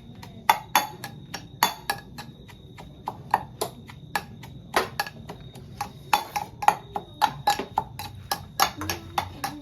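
Irregular sharp wooden knocks and clacks, two to four a second, from kitchen work on a board while roti are being made.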